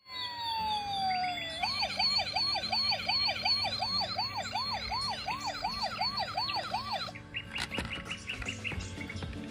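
Electronic siren of a toy emergency vehicle: a falling tone, then a quick rising-and-falling wail repeating about two to three times a second. Near the end it switches to short, bird-like electronic chirps.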